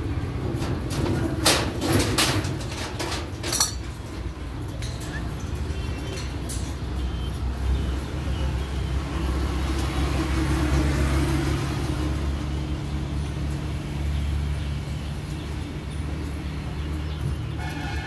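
Steady low background rumble that swells around the middle, with a few sharp knocks or clicks in the first few seconds.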